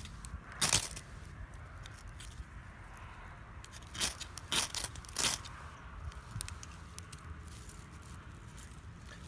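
Light My Fire firesteel scraped hard with its striker: one sharp rasping stroke about a second in, then three more about half a second apart in the middle, showering sparks onto a wooden feather stick until its shavings catch.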